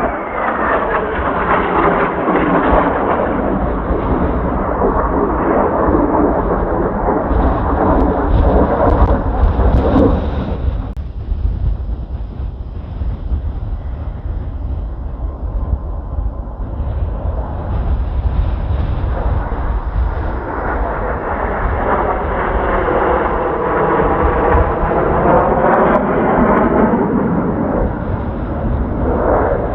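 Kawasaki T-4 jet trainers passing overhead twice: each time the jet roar swells and fades over about ten seconds, with a quieter lull between the passes. A steady low wind rumble on the microphone runs underneath.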